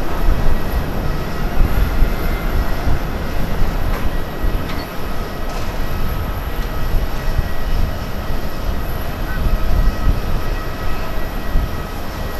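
Jet engines of a four-engine Boeing 747 at takeoff power as it climbs out: a loud, low, rough rumble of jet noise with faint steady whining tones above it.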